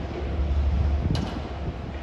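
Wind buffeting the microphone as a low, uneven rumble that swells in the first second, with one short click about a second in.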